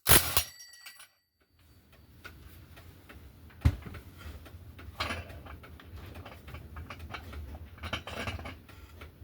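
Metal tool clacking onto a chainsaw clutch, then small irregular clicks and scraping as the reverse-threaded clutch is turned loose, with one sharper click about three and a half seconds in.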